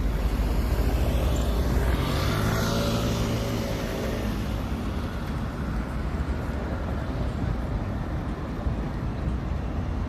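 A road vehicle passes by. Its engine note and tyre hiss swell from about one and a half seconds in, peak near two and a half seconds and fade away by about four and a half seconds, over a steady low street rumble.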